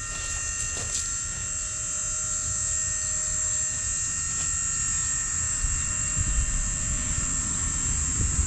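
A motor-driven machine running steadily, with a high whine over a low rumble that grows louder about halfway through.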